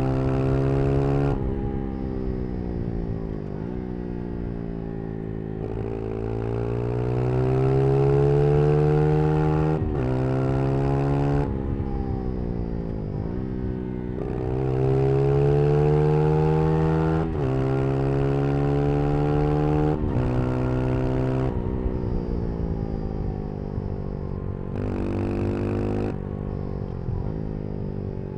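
Brixton Crossfire 125 XS's small single-cylinder engine under way, its pitch climbing for several seconds at a time and then breaking off or sweeping down as the rider shifts and rolls off the throttle, again and again.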